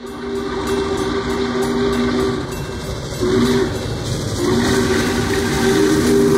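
Steam locomotive's chime whistle blowing several notes together: a long blast, a short one about three seconds in, then another long blast, over a steady hiss.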